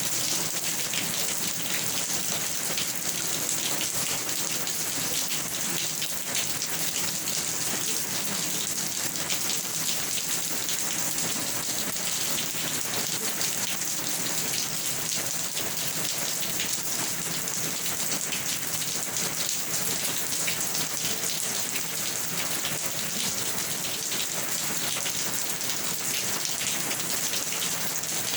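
Steady rain pattering on a surface, an even hiss of many fine drops.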